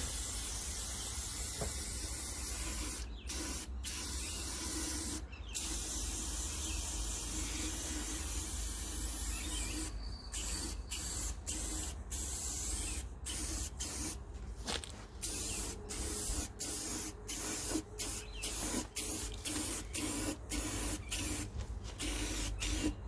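Aerosol spray can spraying a coating onto a polished copper lampshade, soaking it from the top down. One long steady hiss for about ten seconds, then many short bursts in quick succession.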